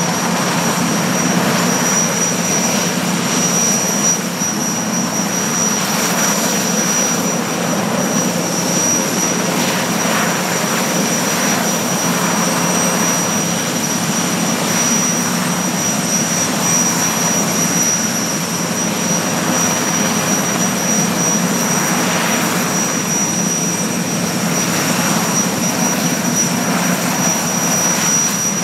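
A military helicopter's turboshaft engines and rotor running close by. A steady high turbine whine sits over the broad, even rush of the rotor and engine, swelling slightly now and then.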